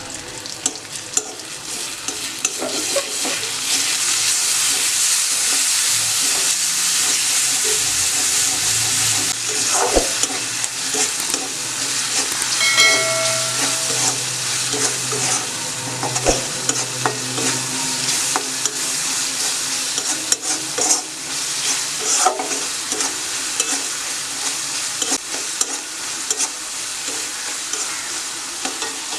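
Food sizzling as it fries in hot oil in a pan, stirred with a utensil that scrapes and clicks against the pan. A brief ringing tone sounds once about halfway through.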